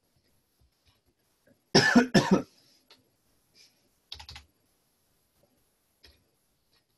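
A man coughs twice in quick succession, loud, then gives a brief, quieter cough about two seconds later. A few faint computer keyboard clicks in between.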